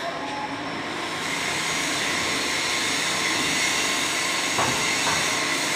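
Chain-driven conveyor of perforated steel slats running: a steady mechanical rumble and rattle with a faint steady whine, building up over the first second. A single short knock sounds a little past halfway.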